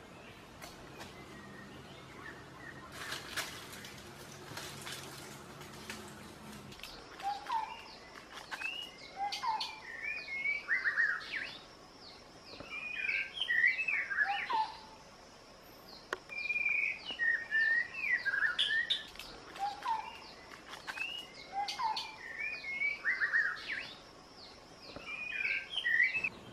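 Songbird singing, repeating short chirping phrases every couple of seconds over a thin, steady high tone. Before the song starts, about seven seconds in, there is only a low hum and a few brief scrapes.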